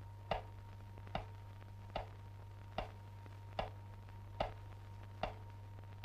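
Slow, even clock-like ticking, seven ticks a little more than one a second, each with a short ring, over a low steady hum.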